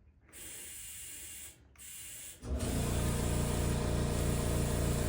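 Two short hisses of air at the tire valve, then a tire inflator's compressor switches on about two and a half seconds in and runs with a steady buzz.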